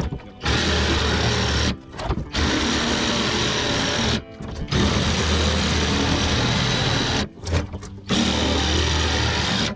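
Cordless reciprocating saw cutting through a plastic 55-gallon drum, running in four runs of a few seconds each and stopping briefly between them.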